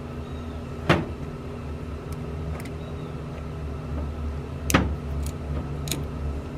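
Two sharp knocks, about a second in and just before five seconds, with a few lighter clicks after the second, from parts and tools being handled, over a steady low hum.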